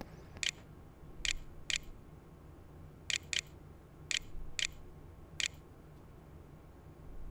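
Computer mouse button clicking eight times at an irregular pace, as keys are picked on an on-screen keyboard to type text, over a faint steady low hum.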